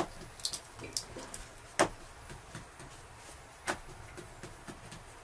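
A fork scoring patterns into rounds of flatbread dough, clicking and tapping against the board beneath: scattered light clicks, with three sharper ones at the start, just under two seconds in and just before four seconds.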